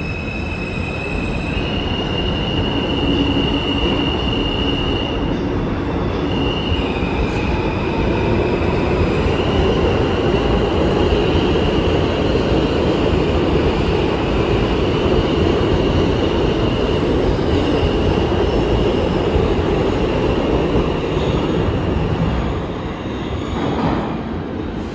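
New York City subway train running at speed, heard from inside the car: a steady rumble of wheels on the track, with a high squeal of the wheels on the rails that shifts in pitch several times. The rumble eases slightly near the end.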